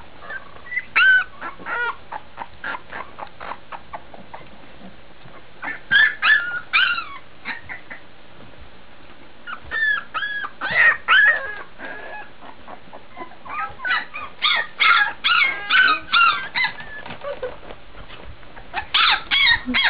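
Young Labrador retriever puppies crying: short high-pitched squeaks and whines that come in clusters every few seconds.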